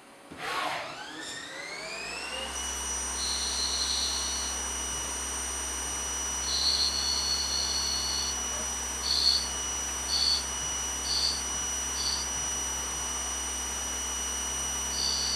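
Metal lathe spindle spinning up with a rising whine over about two seconds, then running at speed with a steady high whine. Over it come separate bursts of cutting noise as the tool takes passes on the spinning metal part: two longer cuts, then several short ones about a second apart, and one more near the end.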